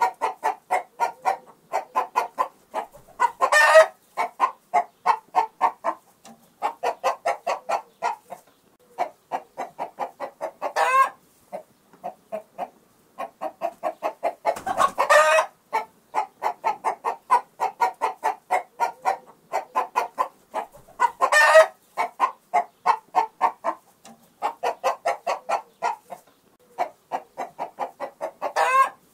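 Chickens clucking in quick runs of short clucks. Five times a louder, drawn-out squawk rises above them.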